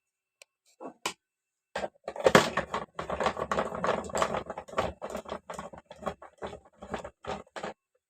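Hands handling a UPS and its battery: a few separate clicks, then from about two seconds in a busy, irregular run of clicks, knocks and scrapes of hard parts being moved.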